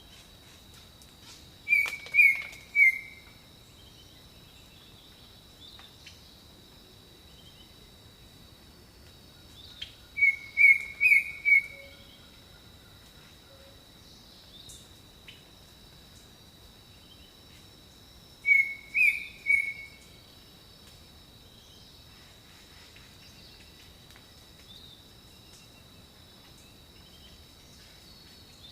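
Jungle birdsong: one bird calls a short phrase of three or four loud, clear notes three times, about every eight seconds. Under it runs a steady high insect drone.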